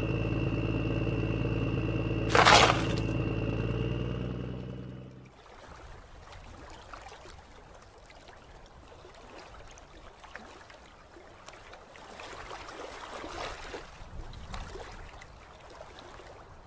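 Steady engine idling sound with a loud short crash about two and a half seconds in as a rock drops into the toy tractor's trolley. The engine sound stops around five seconds in, leaving water splashing and trickling around the toy tractor as it moves through shallow water.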